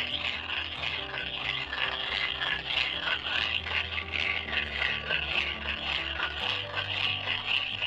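Manual corn mill grinding peanuts into peanut butter: a continuous rasping scrape, over background music.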